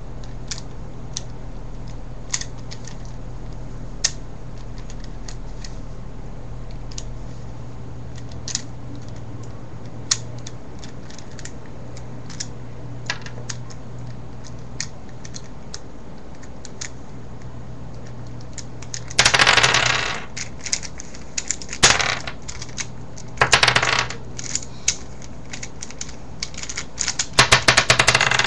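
V-Cube 4 (4x4 plastic puzzle cube) clicking faintly as its layers are turned, then, about two-thirds of the way in, pieces breaking loose and clattering onto a wooden table in several short bursts as the cube comes apart.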